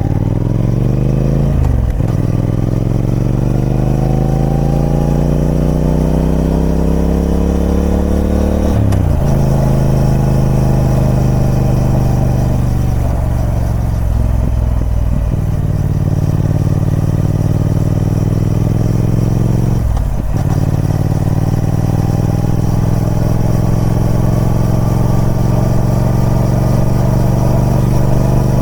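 Triumph Speed Twin 1200's parallel-twin engine on its stock exhaust, riding and pulling up through the gears. The pitch climbs, then drops briefly at gear changes about 2, 9, 15 and 20 seconds in. After the last shift it holds a steady note at cruising speed.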